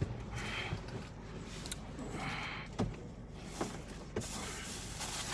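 Faint rustling of clothing and seat belt with a few light clicks and knocks as someone shifts in a car seat.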